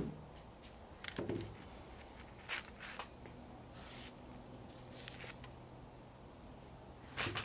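Sparse light metallic clicks and taps as a Thunderbird window channel is handled and seated in a bench vise, then a quick cluster of sharp small-hammer taps near the end.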